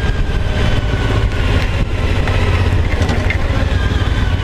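Suzuki V-Strom motorcycle cruising on a rain-soaked road: steady engine drone mixed with wind rushing over the microphone and tyre hiss on the wet pavement.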